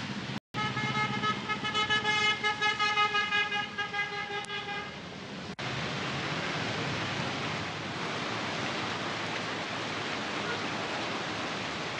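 A vehicle horn honking in repeated pulses over traffic for the first few seconds. After a sudden cut, a steady hiss of heavy rain and traffic on a waterlogged road.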